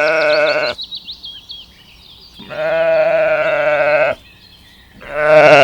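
Bleating farm animal: long, wavering bleats, one trailing off just under a second in, a second lasting nearly two seconds in the middle, and a third starting near the end.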